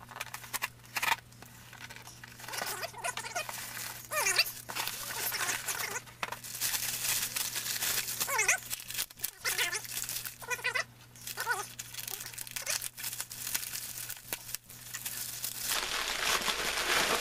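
Packing tape on a cardboard shipping box slit and ripped, then a plastic bubble mailer pulled out and torn open, crinkling and tearing in a string of short rips, a few with a short squeak.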